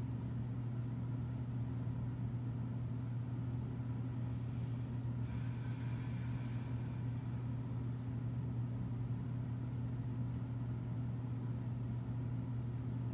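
Steady low background hum with no change in level. A faint, thin high tone joins it about five seconds in and fades out a few seconds later.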